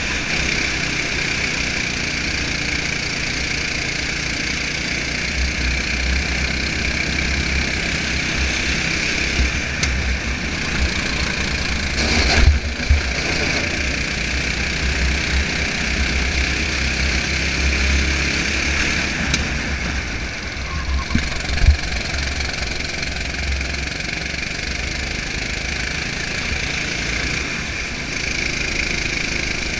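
Racing kart engine running steadily at speed, heard from on board, with wind rumble on the microphone. Two brief knocks stand out, about twelve and twenty-two seconds in.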